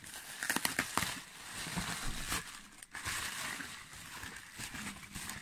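Plastic bubble wrap rustling and crinkling as hands dig through it and shift it around, with a cluster of sharp crackles from about half a second to a second in.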